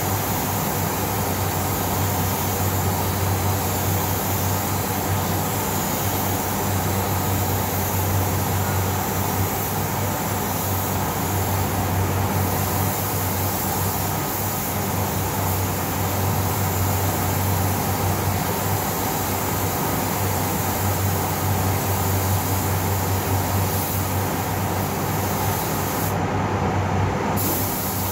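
Compressed-air spray gun hissing steadily as paint is sprayed onto a car body, over the steady hum of a spray booth's ventilation fans. The high hiss cuts out for about a second near the end.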